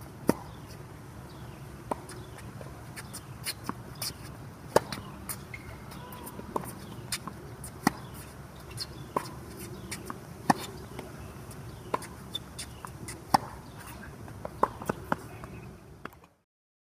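Tennis ball being struck by racquets and bouncing on the court, sharp pops roughly every second at uneven spacing, over a low steady background. The sound cuts off suddenly near the end.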